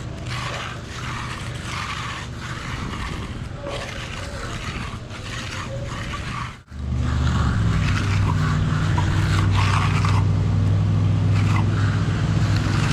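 Concrete power trowel (finishing machine) engines running steadily, with scraping on the concrete slab. After a short break about halfway through, the engine hum is louder.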